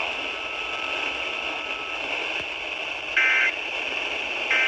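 Radio receiver hiss after an emergency alert message, then short bursts of EAS end-of-message data tones, a two-tone digital warble: one about three seconds in and the start of the next at the very end.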